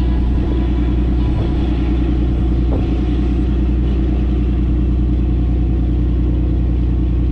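Boat engine running steadily, a low, even rumble heard on board.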